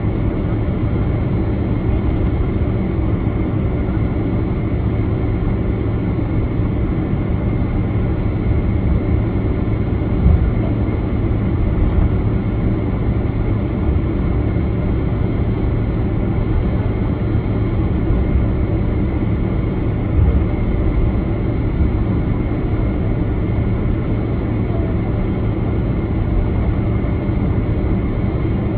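Cabin noise inside a Boeing 767-300ER airliner taxiing on the ground: a steady low engine hum and rumble with a few faint whine tones. A few short low thumps come through, one about ten seconds in, one about twelve seconds in and one about twenty seconds in.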